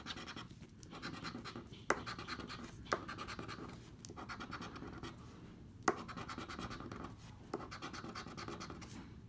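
Plastic poker chip scratching the coating off a paper lottery scratch-off ticket in rapid back-and-forth strokes. It comes in several runs with short pauses between them, with a few sharp clicks along the way.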